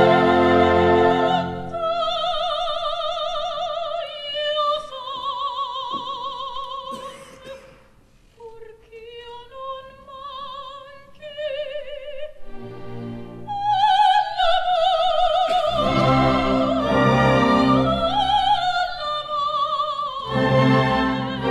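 Opera orchestra playing with a soprano singing over it with wide vibrato. The music dips quieter about eight seconds in, then swells to a full sound in the second half.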